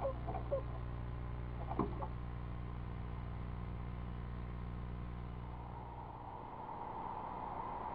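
Eastern screech owl giving the last two soft "chug" notes of its mate-calling series, then a single scrape as it moves in the wooden nest box, over a steady electrical hum. About six seconds in the hum stops and a steady outdoor hiss takes over.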